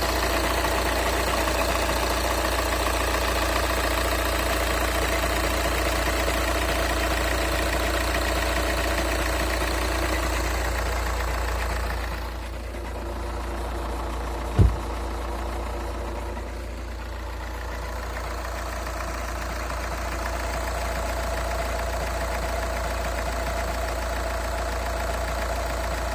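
Škoda Octavia A5 2.0 TDI diesel engine idling cold, with the knocking, ringing noise the owner hears on a cold engine. The sound drops for a few seconds midway, and a single sharp knock comes about fifteen seconds in.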